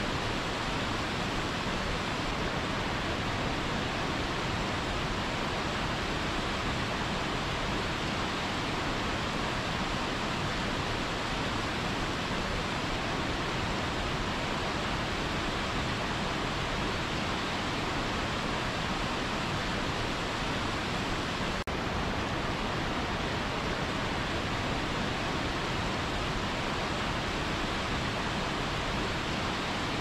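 Waterfall plunging into a rocky pool: a steady, unbroken rush of falling water.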